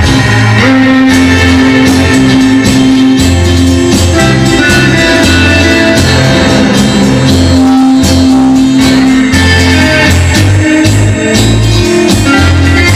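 Rock and roll record playing: a full band with drums, bass line and guitar at a steady beat.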